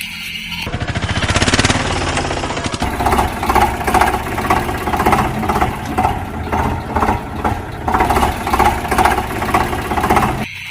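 A motor vehicle engine running loudly, with a fast rattle at first and then a regular pulsing a little more than once a second. It cuts off suddenly near the end.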